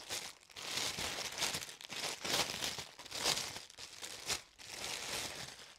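Crinkly packaging rustling and crackling as it is handled, with a cap being taken out of its bag.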